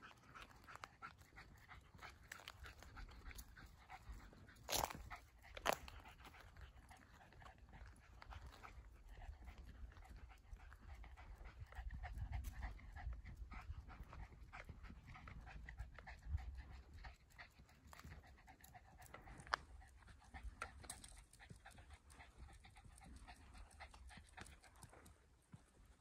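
Jack Russell terrier panting on a walk, faint, amid light ticks, with two sharper clicks about five seconds in.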